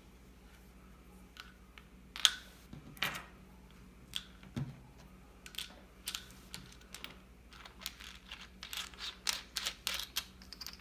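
Light clicks and taps of small cutting heads being stowed inside the aluminium handle of a Lyman Case Prep Multi-Tool and the handle put back together. The clicks come irregularly at first, then quicker near the end.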